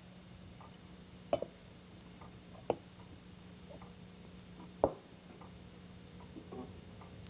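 China teacup clinking against its saucer as it is turned upside down and rotated for tea-leaf reading: a few sharp separate clinks, the loudest about five seconds in, over a faint steady hum.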